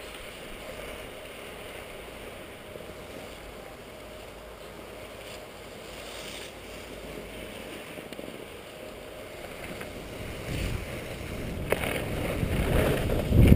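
Skis sliding on packed snow, with wind rushing over the helmet camera's microphone; it grows louder and gustier with low rumbles in the last few seconds.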